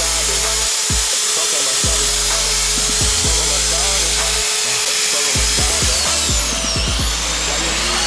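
Handheld power drill running steadily against a wheel hub, with a continuous whine, over background music with a bass line.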